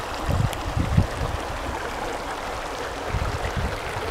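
Shallow rocky mountain stream running over stones, a steady rushing of water, with a few low bumps on the microphone.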